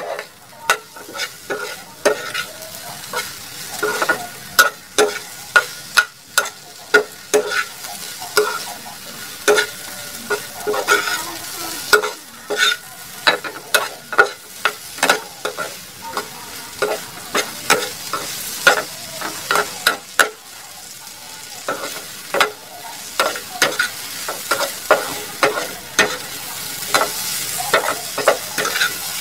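Okra stir-frying in a frying pan: a steady sizzle under the repeated scrape and tap of a spatula against the pan, a few strokes a second.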